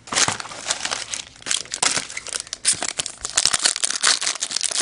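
Crinkly plastic wrapper of a hockey card pack handled close up: dense, irregular crinkling and crackling as fingers work it.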